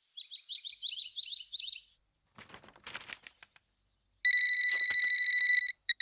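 Small birds chirping rapidly for about two seconds, then a few faint clicks. Near the end a telephone rings with a steady electronic tone for about a second and a half, the loudest sound, ending in two short beeps.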